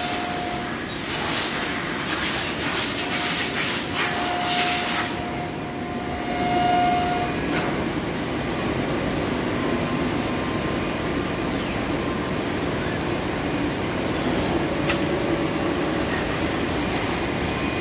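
Emmegi Diamant 7700 four-axis CNC machining centre cutting, with its spindle whining on a steady pitch and coolant mist hissing. The hiss stops about five seconds in and the whine about seven seconds in, leaving a steady machine hum.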